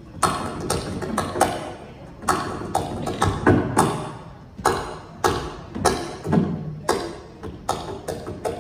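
Balinese kendang drum played solo, struck with sharp slaps mixed with deeper resonant strokes. The strokes fall in an uneven pattern of about two a second.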